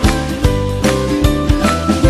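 Background music: a bright, upbeat instrumental with a steady beat and a bass line.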